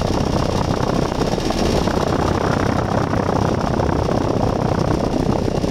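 Outdoor condensing unit of a Broan 3-ton heat pump running steadily: the condenser fan whooshing over the hum of its Copeland scroll compressor.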